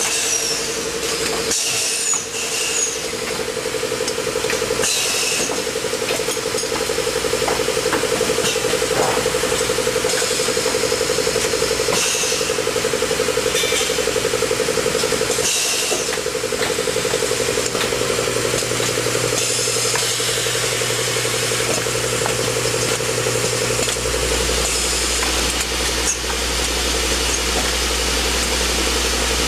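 Automated tube-bending machine line running: a steady machine hum, with short hisses of air from its pneumatic cylinders now and then. Near the end the higher hum gives way to a deeper one.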